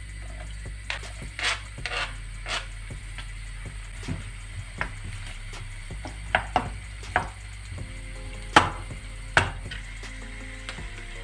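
Kitchen clatter: about a dozen separate, irregular knocks and clinks of cookware and utensils being handled, the two loudest a little past the middle, over a steady low hum.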